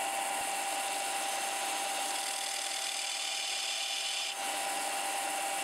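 Bench belt sander running steadily while the end of a metal tube, spun in a cordless drill, is ground against the abrasive belt at an angle, a steady gritty rubbing that tapers the tube's end into a sharp cutting edge. The higher grinding hiss drops away about four seconds in, as contact with the belt eases.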